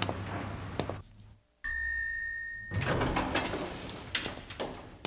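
A single elevator arrival chime, one clear held tone lasting about a second, followed by the elevator doors sliding open with a rushing sound and a few light clicks.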